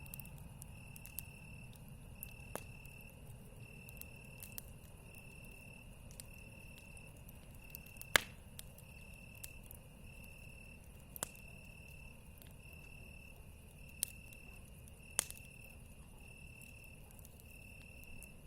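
Crickets chirping in a steady, even train of high-pitched chirps, a little more than one a second. A few sharp pops cut through, the loudest about eight seconds in, typical of a wood campfire crackling.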